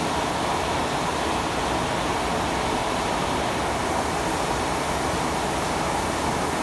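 Steady rushing noise of restaurant kitchen equipment, even and unchanging.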